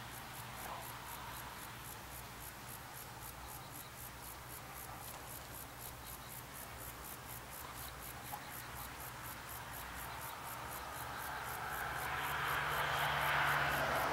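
Steam locomotive C58 239 working its train in the distance, a dull noise that grows steadily louder over the last few seconds as it approaches. Insects chirp throughout in a fast, even rhythm of about four a second.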